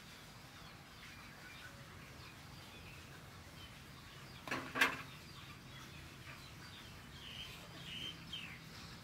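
Birds chirping in the background. A sharp double knock comes about halfway through, and a few short high chirps follow near the end.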